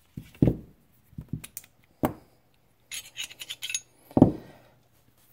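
Clicks, clacks and short scrapes of a Walther PPS pistol being field-stripped, its slide and recoil spring assembly handled against the frame and bench. Three louder knocks come about half a second, two seconds and four seconds in.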